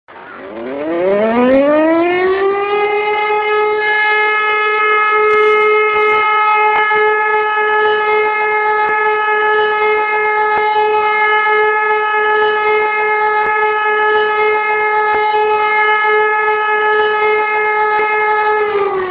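Electromechanical fire-station alarm siren of a volunteer fire brigade. It winds up over about two and a half seconds to a steady high wail, holds it, then begins to wind down just before the end.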